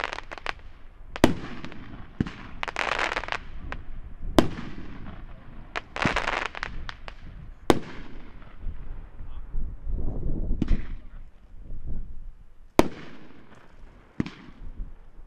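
Dominator 500-gram consumer fireworks cake firing: loud sharp bursts every few seconds, with crackling, hissing trails and smaller cracks in between.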